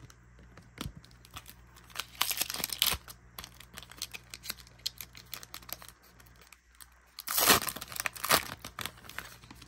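Foil wrapper of a Pokémon Trick or Trade booster pack crinkling and tearing as it is ripped open by hand, with louder rips about two seconds in and again about seven and a half seconds in.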